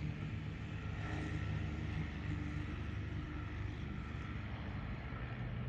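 Steady, low engine hum with no change in pace.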